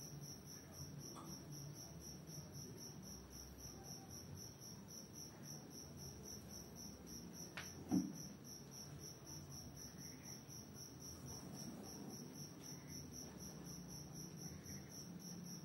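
A cricket chirping steadily in an even, rapid pulse of about five chirps a second, over a faint low hum. A single short knock sounds about halfway through.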